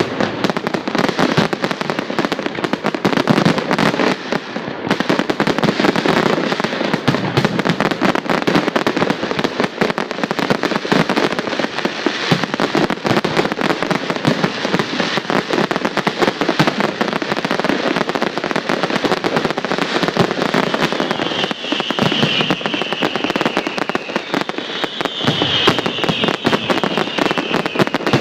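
Fireworks display: a dense, continuous barrage of bursting shells, popping and crackling without a break. Two long falling whistles come near the end.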